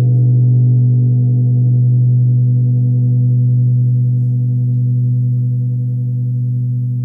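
Large hand-hammered hanging gong ringing on after being struck: a deep steady hum with a shimmer of higher overtones above it, wavering slowly in loudness and gradually fading.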